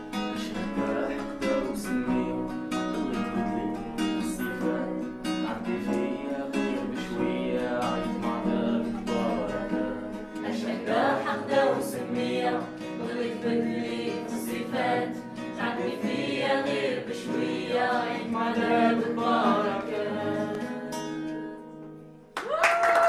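Acoustic guitar played with voices singing along. It fades out near the end and a different tune starts abruptly.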